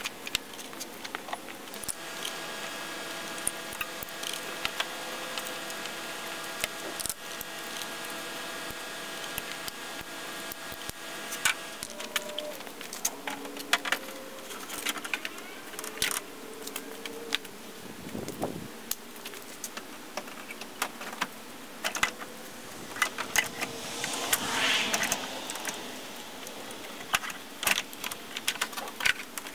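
Scattered clicks, clinks and knocks of metal and plastic car parts and hand tools being handled and fitted at the front of an engine bay. A steady drone sits underneath for the first ten seconds or so.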